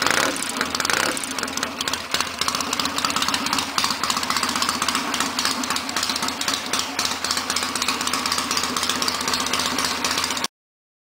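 1967 Triumph Bonneville T120R's 650 cc parallel-twin engine running through open TT exhaust pipes with a rapid, even pulsing. It cuts off abruptly near the end.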